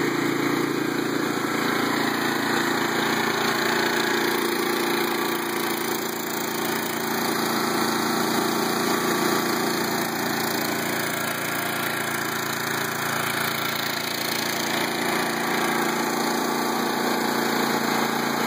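Toro Z Master Z400 zero-turn mower's engine idling steadily, running after its first start of the season.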